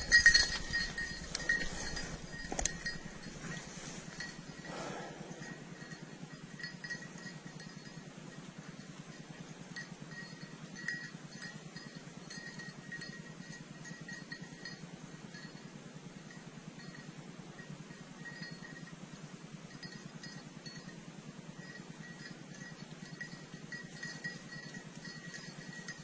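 A bird dog's collar bell tinkling continuously as the dog moves out on a retrieve. There are a few louder rustles and knocks from brush in the first three seconds.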